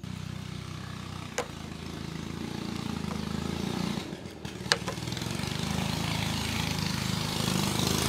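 Small engine running steadily with a low hum, slowly growing louder. Two sharp clicks come about a second and a half in and just under five seconds in.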